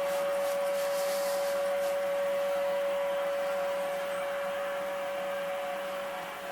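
A steady, high-pitched background hum, with a few faint clicks in the first couple of seconds.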